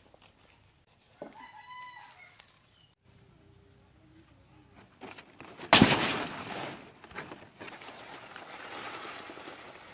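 A rooster crows briefly about a second in. Just past the middle comes a sudden loud crackling of fan-palm fronds being handled, followed by several seconds of leaf rustling that dies away near the end.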